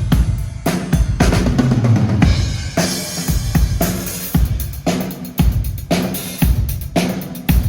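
Drum kit played during a soundcheck: a run of kick drum and snare hits, with some drums ringing on after being struck.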